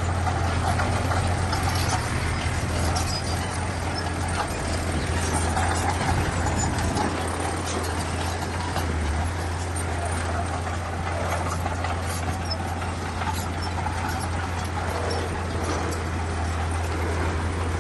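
Bulldozer's diesel engine running steadily with a low drone, with scattered clanks and ticks from the tracks and stone being worked.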